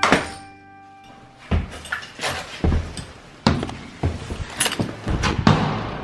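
A door thuds shut, followed by a string of irregular knocks and thumps.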